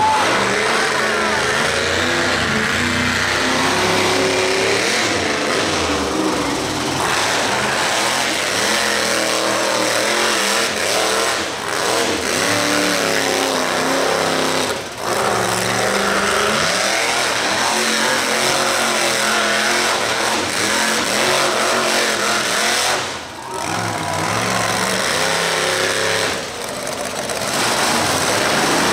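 Monster truck engine revving hard, its pitch rising and falling over and over as the throttle is worked, with short drops about 15 and 23 seconds in.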